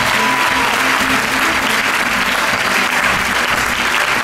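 A large audience applauding steadily, with music playing underneath.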